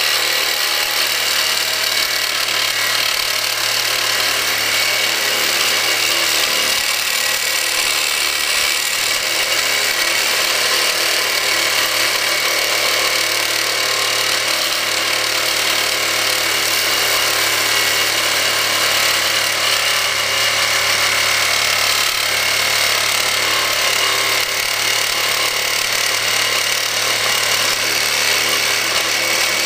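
Reciprocating saw running steadily, its carbide-tipped blade sawing through a hardened steel file: a continuous harsh metal-on-metal cutting noise. The file is so hard that the blade's carbide teeth are chipping off as it cuts.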